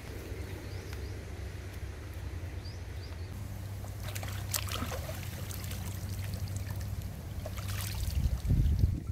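Water splashing and trickling as a freshly plucked duck is rinsed by hand in a river, starting a few seconds in, with louder splashes near the end. A steady low rumble runs underneath.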